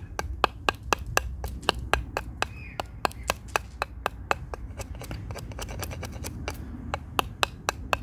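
A heavy knife chopping at the end of a solid oak mallet head, short sharp strikes about four a second, rounding over the hard, dry wood.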